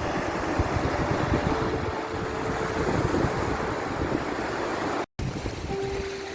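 Ocean waves washing on a shore, a steady rushing surf noise, cut off completely for a split second about five seconds in.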